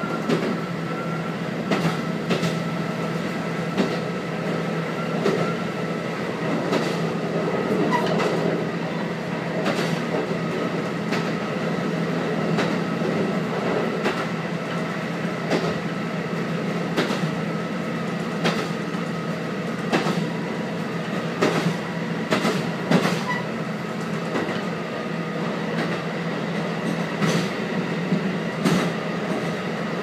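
A KiHa 185 diesel railcar running along the track, seen and heard from just behind the driver's window. Its engine and running gear make a steady drone, broken by irregular sharp clicks of the wheels over rail joints.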